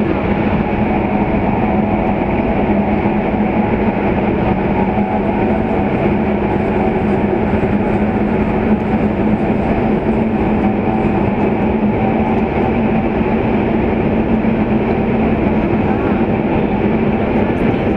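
CRH2 high-speed electric multiple unit running at speed, heard from inside a passenger car: a steady, unbroken running noise with a constant hum through it.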